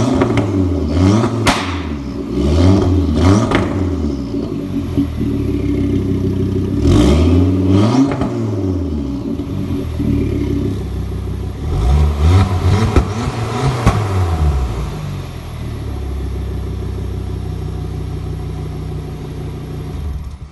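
Ford Focus ST's turbocharged five-cylinder engine revved through an aftermarket cat-back exhaust with a vacuum-operated valve. A run of quick throttle blips in the first few seconds with a sharp crack on some of them, a longer rev about seven seconds in, more blips around twelve to fourteen seconds, then it settles to a steady idle.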